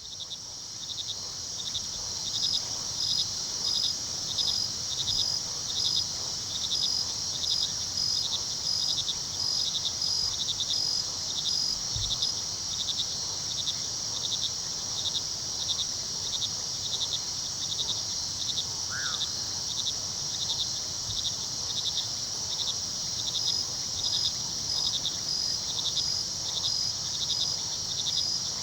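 Night chorus of crickets and other insects: a dense, steady high-pitched trilling with evenly repeating chirps, about three a second.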